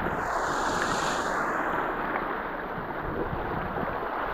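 Rough sea water rushing and washing in a steady noisy rush, swelling hissier over the first two seconds and then settling.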